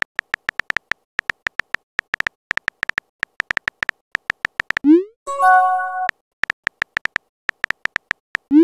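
Texting-app sound effects: a rapid run of keyboard tap clicks as a message is typed. About five seconds in, a short rising pop marks the message being sent, followed by a brief chime of several steady tones, and another rising pop comes right at the end.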